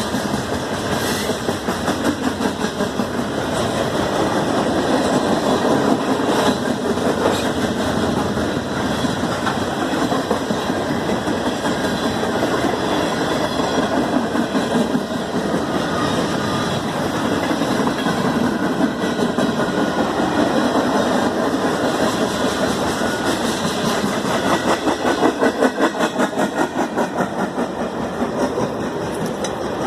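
Norfolk Southern freight train rolling past, a steady rumble with the clatter of wheels on the rails, swelling in a rhythmic pulse near the end.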